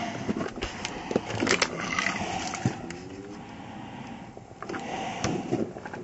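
Handling noise: a hand rubbing and bumping right at the camera's microphone, with scattered clicks and knocks.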